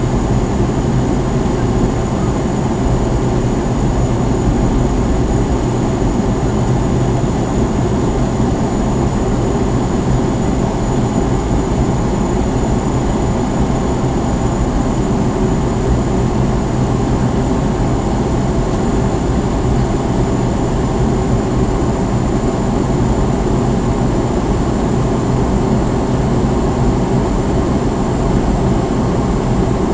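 Steady cabin noise of a McDonnell Douglas DC-9-51 airliner in flight, heard from a forward window seat: a constant low rush of airflow and the rear-mounted Pratt & Whitney JT8D turbofans, with a thin high tone held steady over it.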